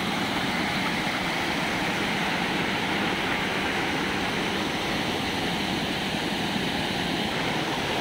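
Steady, unbroken rush of water from a small waterfall and cascade churning into white water.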